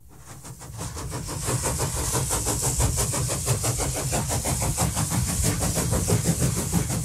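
Background music fading in: a dense, fast, rhythmic track that keeps an even beat.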